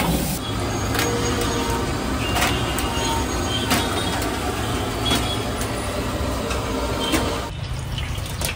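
Egg rice being stir-fried in a large iron wok over a high-flame gas burner: a steady burner roar and sizzle, with the metal ladle knocking and scraping against the wok every second or so.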